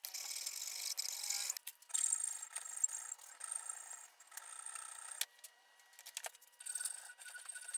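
Hand file rasping across a cast bronze knife handle held in a vise, in several scratchy strokes with a short pause a little past the middle.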